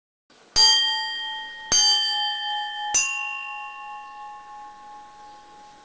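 Three bell-like chime notes struck about a second apart, each ringing on and slowly fading, the last left to ring out. The first strike is the loudest.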